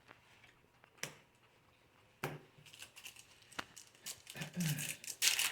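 A couple of sharp clicks, then crinkling and tearing of a foil booster-pack wrapper being opened, growing busier over the last three seconds.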